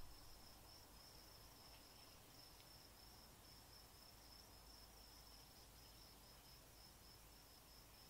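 Near silence, with an insect's faint, steady high-pitched trill over a low hiss.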